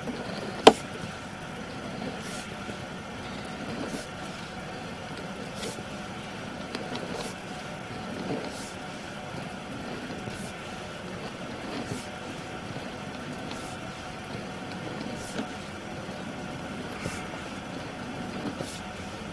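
Steady mechanical hum from the sewer inspection camera rig as its push cable is pulled back through the line, with a faint tick about every second and a half and a sharper click near the start.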